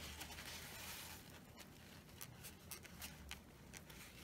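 Near silence: quiet room tone with a few faint, light ticks in the second half, the small handling sounds of close hand work.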